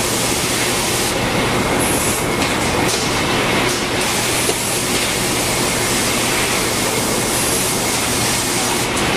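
Automated greenhouse seeding line running: a steady, even mechanical noise with a constant low hum and hiss, and no breaks or clear rhythm.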